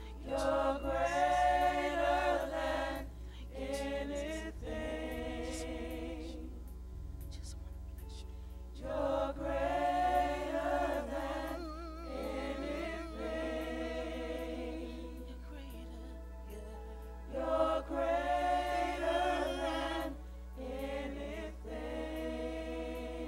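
Gospel worship music with voices singing three long held phrases with vibrato, starting at roughly eight-second intervals, over a soft, steady sustained accompaniment.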